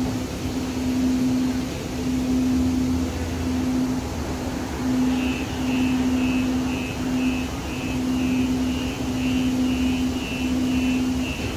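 Inside a Siemens light-rail car: a steady running noise with a low hum that cuts in and out, and from about five seconds in a high electronic beep repeating about twice a second.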